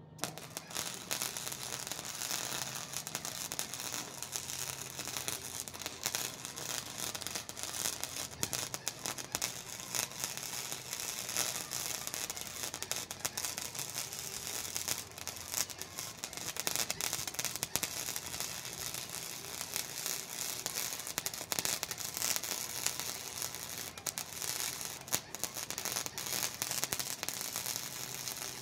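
Wire-feed welder arc crackling steadily as a continuous bead is run along a steel bar, striking up right at the start, over a faint low hum from the welder.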